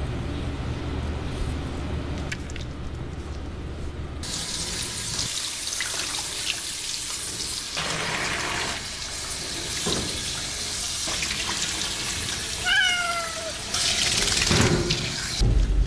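Handheld shower sprayer spraying water while rinsing a wet Persian kitten, starting about four seconds in after a low steady hum. A wet Persian kitten gives one short, falling meow about three seconds before the end.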